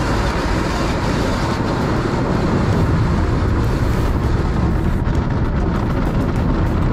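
Automatic car wash at work on a car: water jets, foam and spinning brushes spraying and scrubbing over the body and glass, a loud, steady rushing noise.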